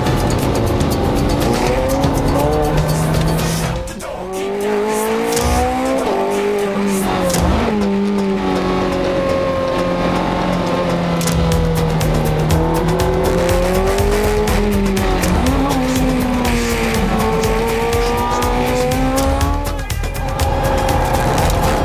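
Ferrari 430 Scuderia's V8 engine heard from inside the cabin at track speed, its pitch rising and falling with throttle and gearshifts. The engine note drops away briefly about four seconds in and again near the end.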